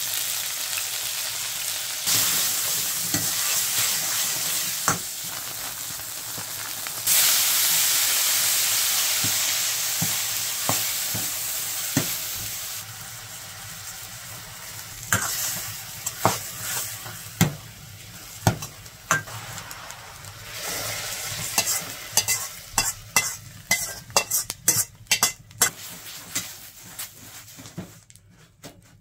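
Food sizzling and frying in a black wok over a wood fire, with a metal utensil knocking and scraping against the wok as it is stirred. The sizzle gets louder about two seconds in and again about seven seconds in, then dies down, while quick clacks of the utensil on the wok come thick near the end.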